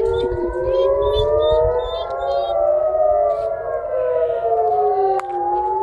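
Several civil-defense sirens wailing at once, their slow rising and falling tones overlapping out of step with one another: a rocket and missile alert sounding.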